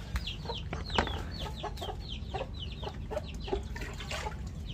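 Chickens peeping and clucking: a run of short, high, falling chirps, about four a second, with some lower clucks among them.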